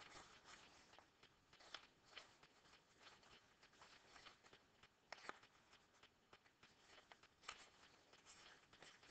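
Near silence, with faint rustling and small clicks of paper sheets being handled. Two slightly sharper ticks stand out, about five seconds in and again about two seconds later.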